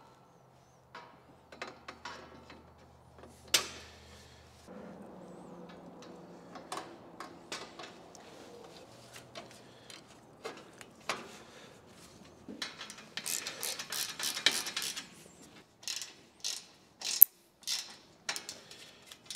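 Clinks and knocks of steel rails and brackets being fitted and bolted onto the machine bed. About two thirds of the way through comes a rapid run of ratchet clicks as a wrench tightens the bolts, and a single sharp metal click near the end is the loudest sound.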